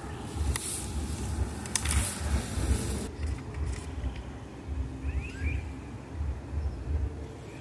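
Wind buffeting the microphone with a pulsing low rumble, over which a machete knocks twice against a freshly cut bamboo pole and the pole's leaves rustle. About five seconds in, a bird gives a few short chirps.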